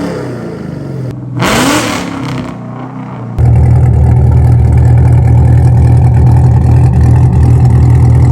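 Exhaust of a V8 with catless long-tube headers: a quick rev that rises and falls about a second and a half in, then, from a sudden step about three and a half seconds in, a loud, steady, deep idle.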